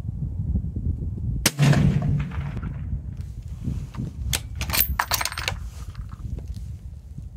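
A suppressed rifle shot about a second and a half in, with a short echo trailing off, followed by a quick run of sharp cracks around four to five seconds in. Steady wind noise rumbles on the microphone throughout.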